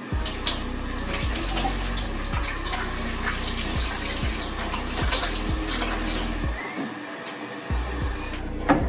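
Water running steadily from a kitchen tap, shut off shortly before a knock near the end.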